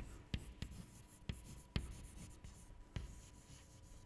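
Chalk writing on a blackboard: faint, irregularly spaced sharp taps and short scratches as letters are chalked on.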